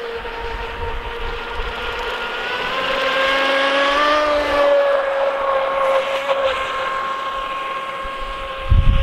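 WL Toys WL915 RC speedboat's brushless motor and propeller whining steadily as the boat runs on the water. The whine grows louder and rises slightly in pitch up to about four seconds in, then holds steady. A low rumble of wind on the microphone comes in near the end.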